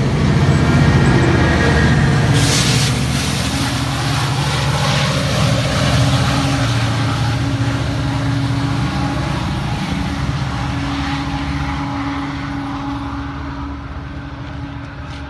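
GO Transit bilevel commuter train passing close and pulling out of the station: a steady low rumble with the rush and rattle of the coaches' wheels on the rails, fading gradually as the train draws away.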